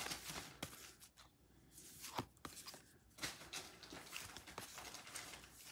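Faint handling of a small stack of cardstock oracle cards: soft sliding rustles and scattered light clicks as cards are moved from the front to the back of the stack.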